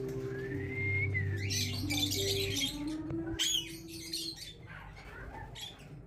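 Alexandrine parakeets giving short chirps and squawks, several calls in the first four seconds and fewer after, over background music with long held low notes.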